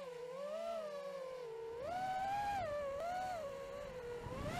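Model plane's motor and propeller heard from the onboard camera, a steady whine whose pitch rises and falls repeatedly with the throttle.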